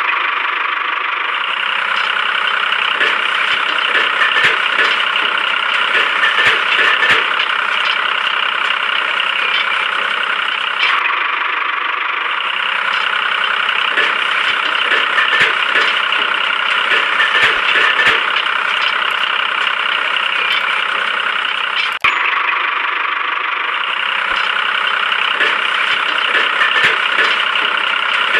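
A small motor running steadily with a busy, rattly whir and scattered clicks, broken by abrupt cuts about 11 and 22 seconds in.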